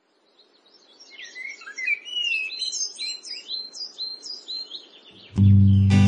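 Songbirds chirping and whistling in quick, high, sliding phrases, fading in at the start. About five seconds in, a loud strummed acoustic guitar chord comes in.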